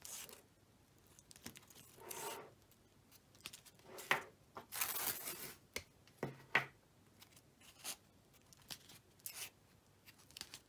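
Tape being pulled and wound around foil-covered wire root pieces: about ten short, irregular tearing and crinkling strokes, the longest and loudest about four to five seconds in.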